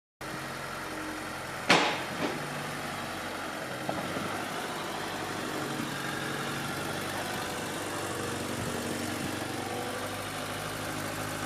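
BMW E30's engine idling steadily, with a sharp thump about two seconds in and a couple of fainter knocks after it.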